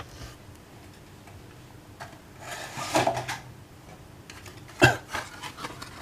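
Handling of a cardboard product box: rubbing and shuffling as it is picked up, with one sharp knock about five seconds in.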